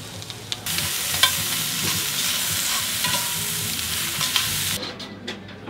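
Bacon pieces sizzling in a cast-iron skillet while being stirred with metal tongs, with a few clicks of the tongs against the pan. The sizzle cuts in abruptly just under a second in and stops abruptly near the end.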